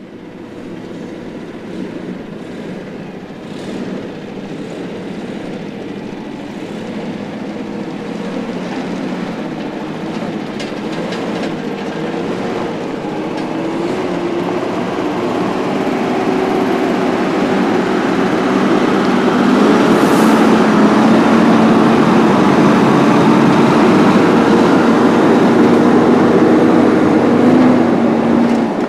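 Heavy diesel truck engine running steadily, growing gradually louder, with a few held hums that step up or down in pitch now and then.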